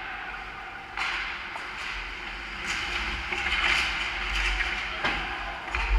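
Ice hockey play at the net: skates scraping and carving on the ice, with several sharp clacks of sticks and puck.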